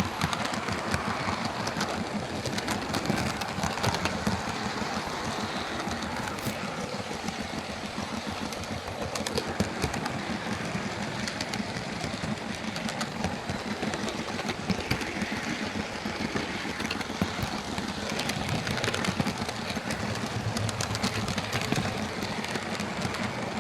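Hornby OO gauge King Class model steam locomotive running on its track: a steady whirr from its motor and gears, with frequent irregular clicks of the wheels over rail joints. Freshly cleaned and lubricated, it runs smoothly with no grinding.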